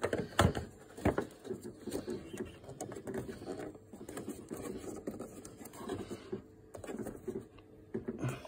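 Plastic headlamp rear cap being worked back into place behind a car headlight: a couple of sharp clicks or knocks in the first second or so, then irregular rubbing, scraping and handling noise in the cramped engine bay.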